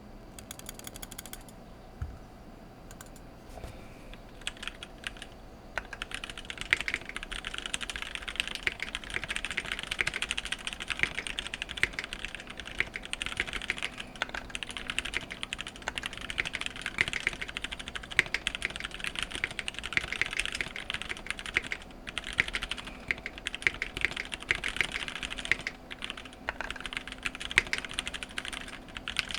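Typing on a custom 60% mechanical keyboard with Gateron KS-3 Yellow linear switches, lubed with Krytox 205g0 and filmed, in an acrylic case with a polycarbonate plate and case foam. A few scattered keystrokes at first, then steady fast typing from about six seconds in.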